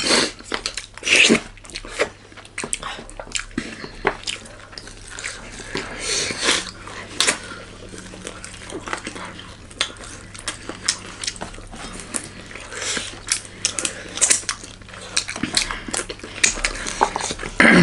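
Close-miked eating sounds: wet chewing and lip-smacking of rice, curry and meat, with many short clicks and smacks and occasional light clinks of dishes.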